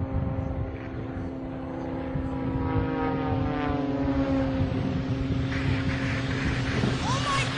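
Propeller aircraft engine running steadily, its pitch sliding down over a couple of seconds midway. Near the end a second tone comes in, rising and then falling.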